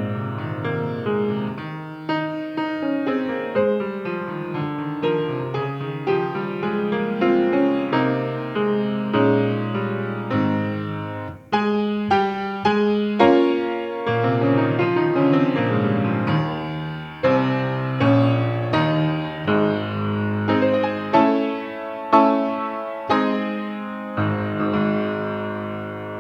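Solo piano playing a slow piece in full chords, each note struck and left to fade, ending on a long held chord.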